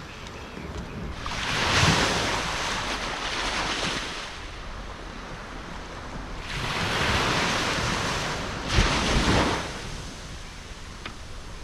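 Sea waves breaking and washing in, two surges about five seconds apart.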